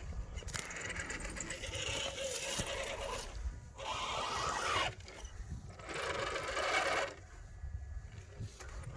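Scale RC rock crawlers' electric motors and gear drivetrains whirring in three bursts as the trucks crawl over rock, with tyres scraping.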